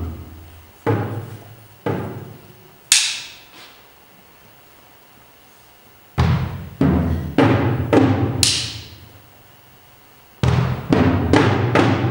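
Percussion duo playing timpani and drums: spaced single strokes, each ringing down with a deep drum tone, in three short phrases with pauses of about two seconds between them. A couple of brighter, sharper strokes stand out, and the last phrase quickens into a rapid run of strokes near the end.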